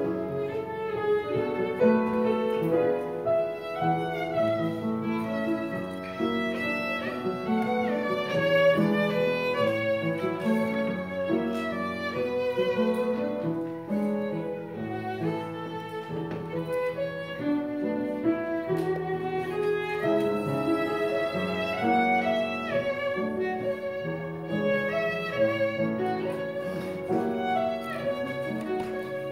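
Violin playing a waltz melody, with lower accompanying notes underneath.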